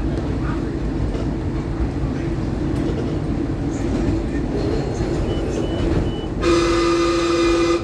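Adtranz M4 rapid-transit train running along the track with a steady rumble of wheels on rail. About six and a half seconds in, a train horn sounds one steady blast of just over a second and cuts off.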